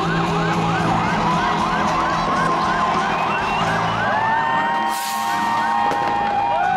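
Sirens in a fast yelp, about three rising-and-falling sweeps a second, switching about four seconds in to a slower wail. Low steady hum lies under them.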